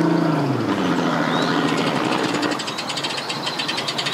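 Bass boat's 225 hp outboard held at high revs to power the boat onto its trailer, its pitch dropping under a second in as the throttle is cut. It then settles to an idle with a fast, even ticking.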